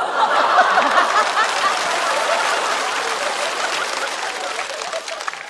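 Studio audience laughing and applauding after a punchline: a dense wash of many laughing voices and clapping that dies away near the end.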